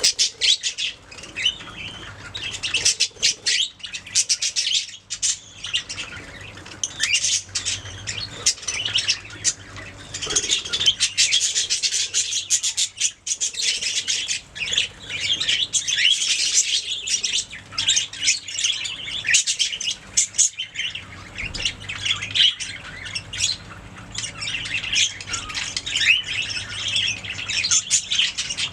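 Budgerigars chattering and warbling continuously, a busy mix of chirps, squawks and warbled phrases.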